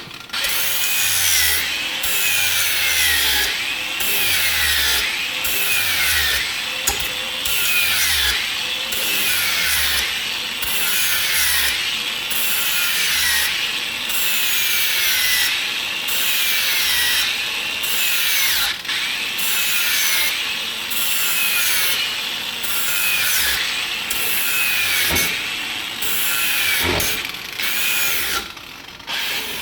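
Angle grinder grinding metal in repeated back-and-forth passes, its whine rising and falling about once a second as the disc bites and eases off.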